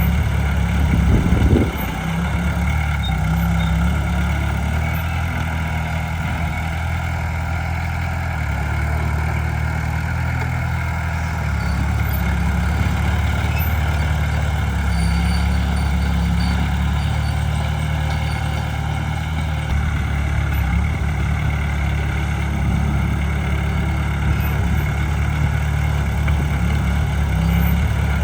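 Heavy diesel engine of an earthmoving machine running steadily under load, with a brief knock about a second and a half in.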